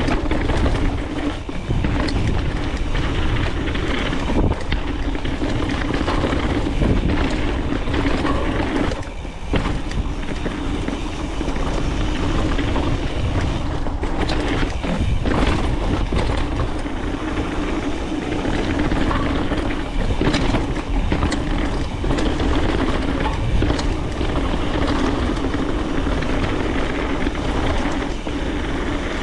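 Mountain bike descending a dirt trail heard from the rider's camera: tyres rolling over dirt and gravel and the bike rattling over bumps, with heavy wind on the microphone. Loudness dips briefly twice.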